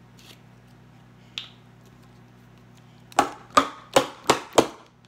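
A faint click, then five sharp knocks in quick succession, about three a second, near the end.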